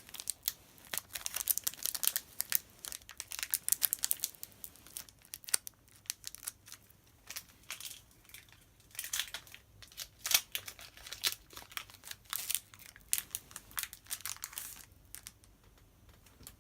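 Pokémon card booster pack being opened by hand: irregular crinkling of the foil wrapper with short tearing sounds, thinning out near the end.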